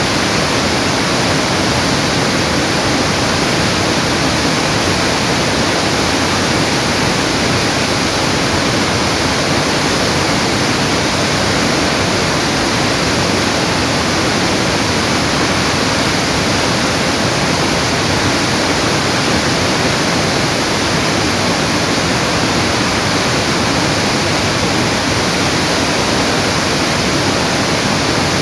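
Rushing water: a loud, steady hiss with no pauses or changes, like a river rapid or waterfall.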